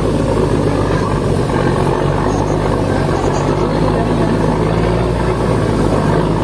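Ferry boat's engine running steadily, a low drone under the rush of water along the hull.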